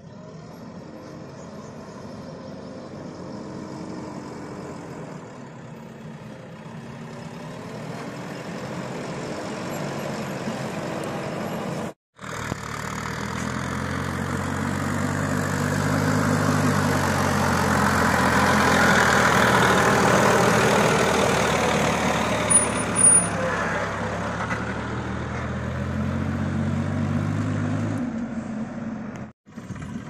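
Diesel engines running. At first, a backhoe loader works at a distance with its engine pitch wandering. After a sudden cut, a Massey Ferguson tractor pulling a trolley drives up close, its engine growing louder and then easing off.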